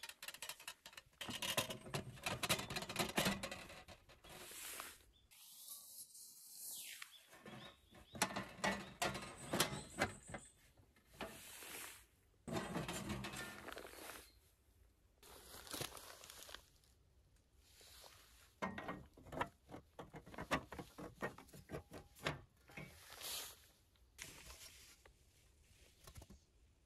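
Handling sounds of camp gear: a Snow Peak flat burner being set into the aluminium IGT table's frame, and the table's aluminium top panels being lifted and moved. The sound is scattered light clicks, taps and scraping.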